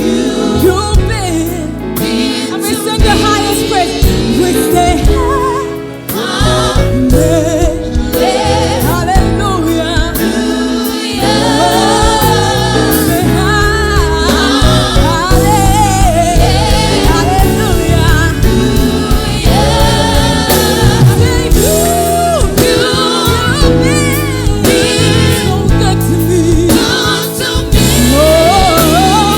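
Gospel music: a choir of voices singing over a band with bass and a steady beat, with a brief drop in level about six seconds in.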